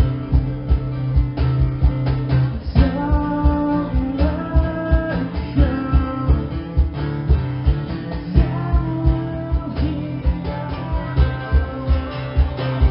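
Live acoustic rock performance: acoustic guitars strummed over a steady low beat, with a sung vocal line.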